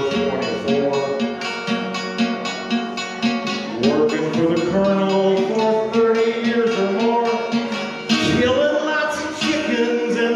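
A man singing while strumming an archtop acoustic guitar at about four strums a second.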